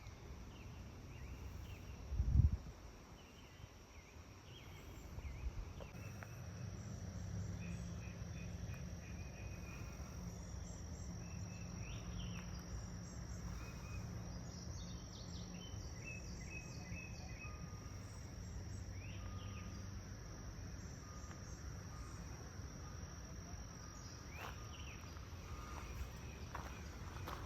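Steady high-pitched drone of insects, with scattered short bird chirps. A brief low thump comes about two seconds in, and a low steady hum joins from about six seconds in.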